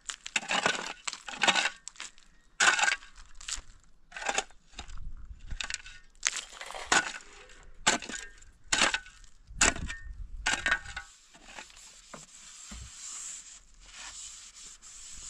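Steel shovel blade digging into stony, gravelly soil: a run of scraping, crunching strokes with rocks clattering, one or two a second, that stops about eleven seconds in. A fainter, steady hiss follows.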